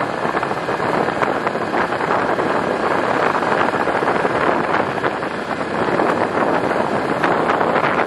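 Vehicle driving along a gravel road: steady engine and tyre noise with gravel crunching under the wheels, and wind buffeting the microphone.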